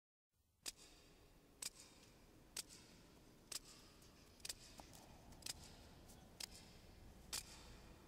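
Faint, evenly spaced ticks, about one a second, over a low steady hum.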